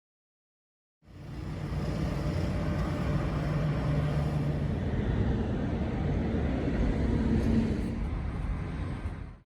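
Steady road traffic noise from vehicles on a street. It fades in about a second in and fades out at the end.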